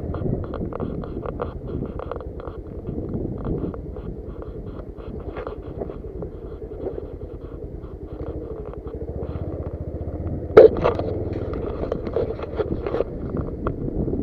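Motorcycle running over a rough off-road track, its engine rumbling under many short rattles and knocks from the bumps. One sharp, loud knock comes about ten and a half seconds in.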